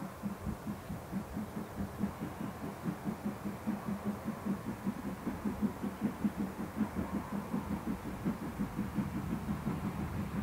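Distant steam locomotive working toward the listener, its exhaust beats coming in a steady, even rhythm and growing slowly louder as it approaches.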